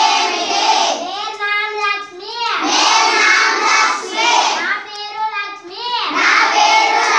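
A class of schoolchildren chanting Punjabi phrases in unison, in a sing-song recitation, line by line with short breaks between lines.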